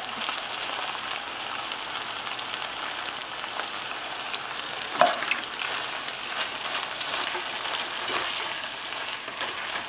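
Ground beef and baked beans sizzling steadily in a frying pan while a spatula stirs them. A sharp knock about five seconds in.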